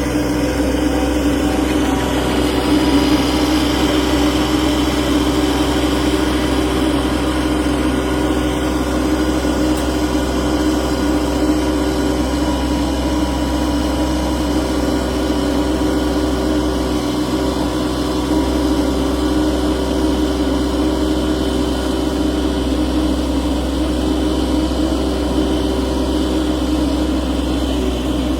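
An engine running steadily at a constant speed, a low hum with a steady higher tone over it.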